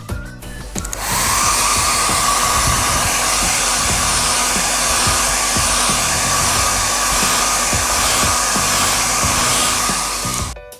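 An electric blower motor, of the hair-dryer or heat-gun kind, starts about a second in and runs steadily with a rush of air and a high hum, then switches off shortly before the end.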